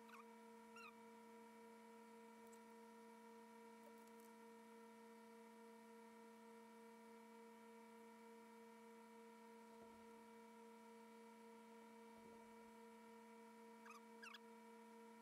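Near silence: a faint steady hum made of several fixed tones, with a few faint short chirps about a second in and near the end.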